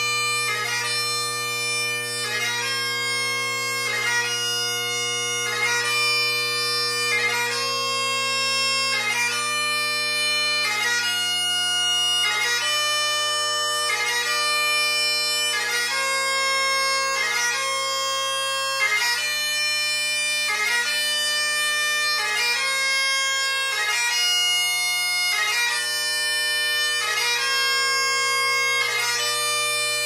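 Great Highland bagpipe playing piobaireachd in the taorluath singling variation. The drones hold a steady bass under the chanter, whose held melody notes are broken about once a second by a quick gracenote movement.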